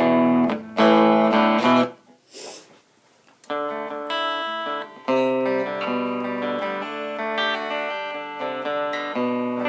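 Stratocaster electric guitar played clean through a small amplifier on its DiMarzio Virtual Solo stacked-humbucker pickup alone: two quick strummed chords, a pause of about a second and a half, then chords left ringing for the rest. The tone sounds single-coilish.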